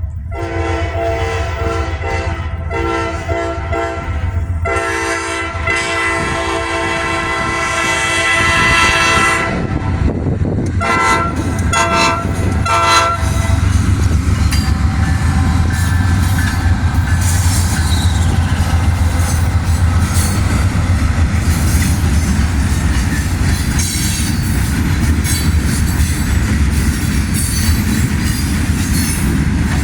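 Nathan K5LA five-chime air horn on a GE AC44C6M diesel locomotive giving a horn show: several short and medium blasts, one long blast held about five seconds, then a quick run of short toots that ends about halfway through. After that the slow-moving freight train rumbles past with the locomotives' diesel engines running and wheels clicking over rail joints.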